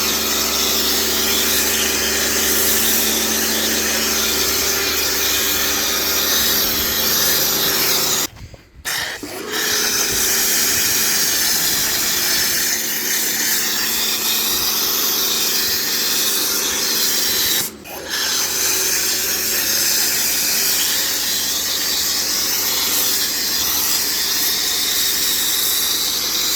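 Kärcher K4 electric pressure washer running while snow foam hisses from a foam cannon onto a car. The sound cuts out for about a second roughly a third of the way in, and again briefly about two-thirds in, as the trigger is let go.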